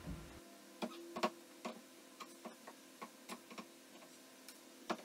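A hammer tapping a pry bar set behind an old wooden ledger board to work it off the wall: about ten sharp, irregular knocks, the loudest a little over a second in.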